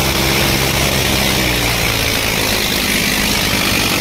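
Tractor diesel engines running hard under heavy load in a tochan tug-of-war pull. The engine note is steady at first and shifts in pitch about halfway through.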